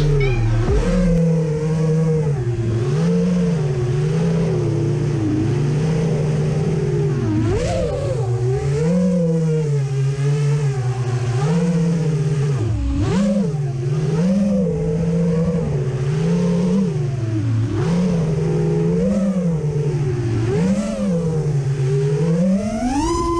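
Brushless motors and propellers of an FPV quadcopter, the Alien Butter Kwad, whining as it flies, heard from its onboard camera. The pitch rises and falls every second or so with the throttle during the turns and loops. Near the end it climbs steeply in a full-throttle punch, then drops off abruptly.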